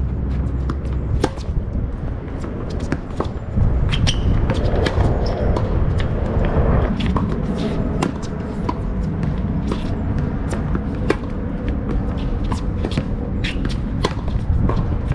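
Tennis rally on a hard court: sharp racket strikes on the ball and ball bounces at uneven intervals, with shoe scuffs on the court, over a steady low rumble.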